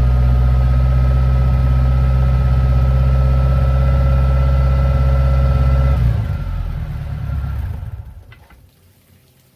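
Sterndrive boat engine idling steadily while run on the trailer with its outdrive in a water tote. About six seconds in it is shut off and runs down, fading out over a couple of seconds.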